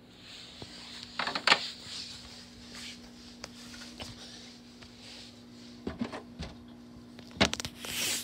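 Handling noise: scattered clicks and a few clusters of knocks and rustles, about a second in and again near the end, over a steady low hum.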